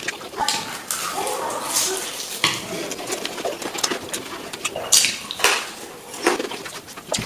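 Close-up eating sounds of a person tearing into a cooked fish head: chewing and mouth smacking with many short sharp clicks at irregular times.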